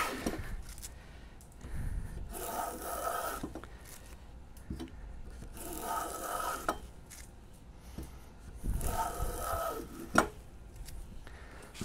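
Metal rabbet plane cutting a rabbet along the edge of a board: three strokes, each a rasping shaving sound about a second and a half long. A sharp knock comes just after the third stroke.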